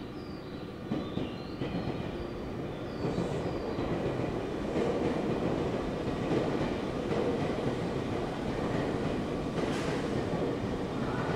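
Tokyu 1000 series electric train running past on the track, a steady rumble of wheels on rail that grows louder about four seconds in as it comes nearer. A few faint short high squeals sound in the first few seconds.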